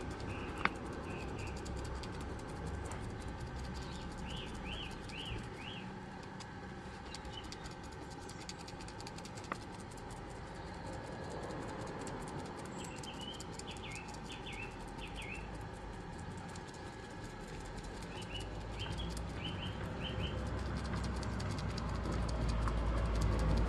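A small bird chirping in three short runs of quick, rising notes, over a steady background hiss. Two sharp clicks come near the start and about ten seconds in, and a low rumble grows louder near the end.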